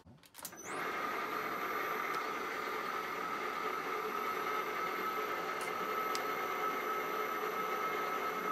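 Hafco Metalmaster AL960B lathe started on its VFD-driven three-phase motor: about half a second in it spins up with a short rising whine. It then runs steadily on the slow pulley at the low preset with an even motor whine and drive hum.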